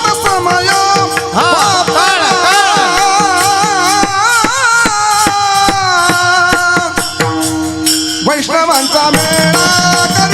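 A man singing a long, ornamented devotional melody whose pitch wavers and glides, over hand-drum strokes and jingling percussion.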